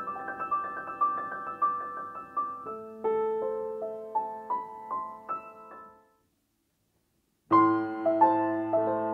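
Young Chang 120 upright piano being played: a melody of struck notes over held lower notes, dying away about six seconds in. A second and a half of silence follows, then the playing starts again louder.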